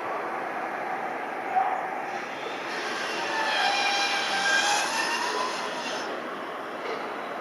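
Embraer 175 regional jet on landing approach, its turbofan engines running with a rising and fading whine over a steady rushing noise; the whine is strongest from about three to six seconds in.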